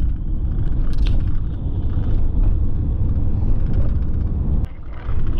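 Steady low rumble of road and tyre noise inside a moving vehicle's cabin, with a single click and a short drop in level near the end.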